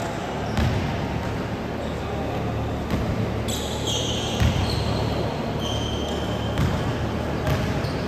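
A basketball bouncing on a gym floor in an echoing hall, with several short, high-pitched sneaker squeaks as players move on the court.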